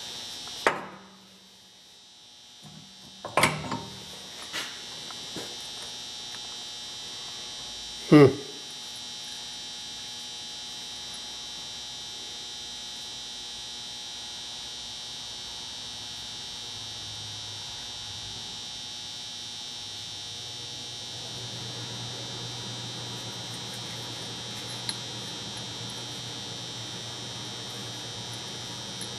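Small metal sander parts clinking and knocking as they are handled, with a few sharp knocks in the first ten seconds, the loudest a little after eight seconds. A steady high-pitched whine runs underneath, and a low hum comes in after about twenty seconds.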